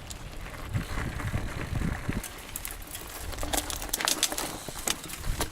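Mountain bike riding over a dirt trail: a low rumble of tyres on the ground with many short clicks and rattles from the bike.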